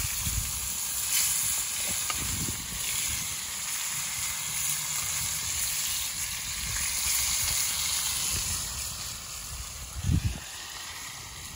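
Tri-tip searing in hot lard in a cast-iron skillet, sizzling steadily, a little quieter near the end. A dull thump about ten seconds in.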